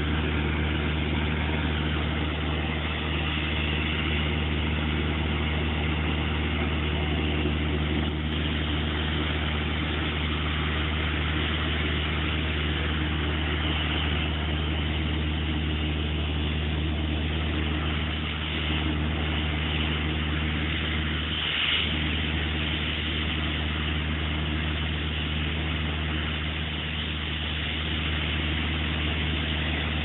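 Tractor-driven air compressor running steadily, its engine humming under a continuous hiss of compressed air blasting from a hand-held hose nozzle to blow dust and loose grit off the road surface.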